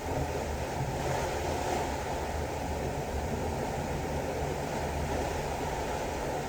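Sea water rushing past a cruise ship's hull, heard from a balcony: a steady even rush of waves with a low rumble underneath.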